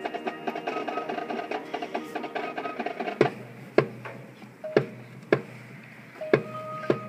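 Marching band music: a fast run of rapidly repeated mallet-percussion notes, then from about three seconds in a series of loud, sharp percussion hits spaced roughly half a second to a second apart, with a held tone coming in near the end.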